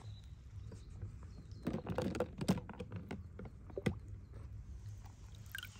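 Water splashing and sloshing in a plastic tub as a hand fishes out a die-cast toy car, with a run of splashes and knocks on the plastic from about one and a half to four seconds in, over a low steady rumble.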